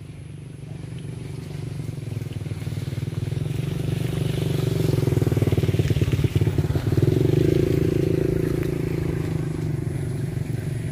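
A motor vehicle's engine running steadily, growing louder to a peak a little past the middle and then easing off.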